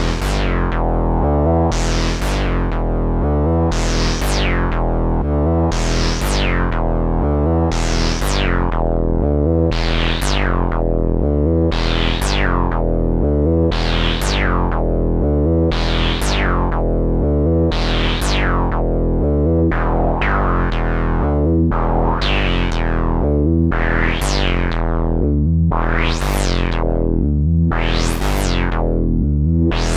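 IK Multimedia Uno Synth, a monophonic analog synthesizer, playing a sequenced pattern. Roughly every two seconds a bright note opens and closes downward as the filter sweeps shut, over a steady, stepping run of low notes.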